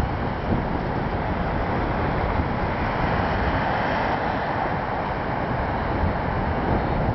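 Steady rushing noise of wind buffeting the microphone together with surf; no bird calls stand out.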